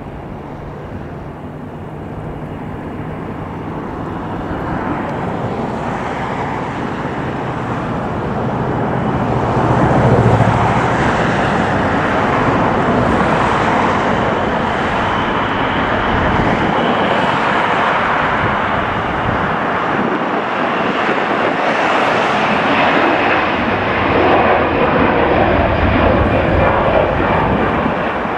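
Jet airliner engine noise: a broad, steady rushing sound that builds over about the first ten seconds and then stays loud as the aircraft passes close by.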